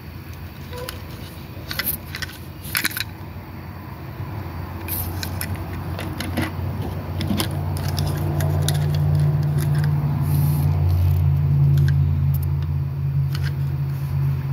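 Light clicks and clinks of small metal die-cast toy ambulances being handled and set down on a wooden table. About halfway in, a steady low hum comes in and stays loud, louder than the clicks.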